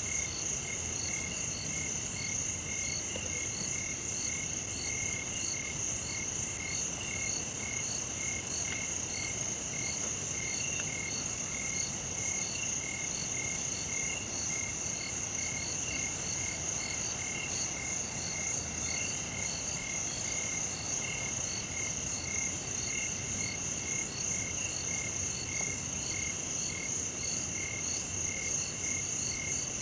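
Night chorus of frogs and insects: a steady high-pitched insect trill with a pulsed frog call repeating about twice a second, unbroken throughout.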